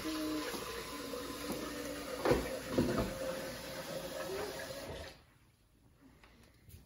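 A steady hiss that cuts off suddenly about five seconds in, with two knocks a little past halfway as a wooden spatula and silicone tongs work a pancake on a griddle.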